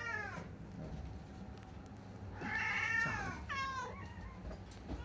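Bengal cats meowing: the end of one meow at the start, then a longer meow about halfway through, followed at once by a shorter one that falls in pitch.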